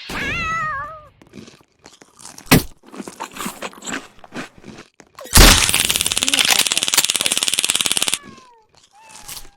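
A cat meows once at the start, the pitch wavering and falling. About five seconds in, a loud coarse crackling noise lasts roughly three seconds.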